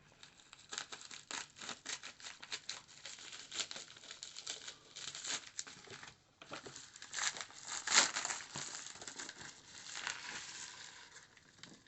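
Scissors cutting open a package, with its wrapping crinkling and tearing in a run of short snips and rustles, loudest about eight seconds in.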